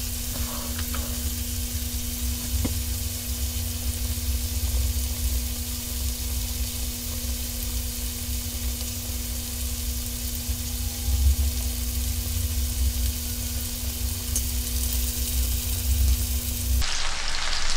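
Chicken thighs searing in hot olive oil in a skillet: a steady sizzle, with a low hum underneath that stops shortly before the end.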